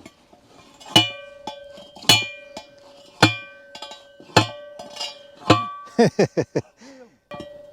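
Heavy blows on metal, five of them about a second apart, each leaving a ringing tone, followed near the end by a brief voice-like call and one more blow.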